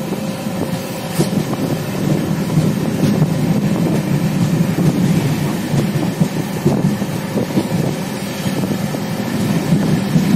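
Moving passenger train heard from an open coach doorway: a steady running rumble of the wheels on the track, with wind on the microphone and a few sharp clacks.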